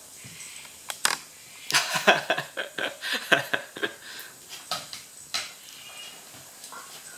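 A Maltese and a Golden Retriever scuffling in play: a flurry of clicks and scrabbles from claws and paws on wooden floorboards and a dog bed. It is busiest in the middle and thins out near the end.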